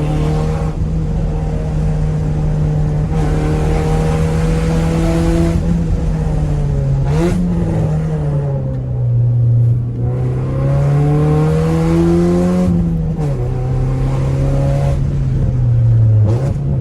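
Honda Civic EJ6 inline-four engine under hard driving, its revs climbing and falling again and again through corners and gear changes. There is a quick rev blip about seven seconds in, and a steep drop in revs near the end.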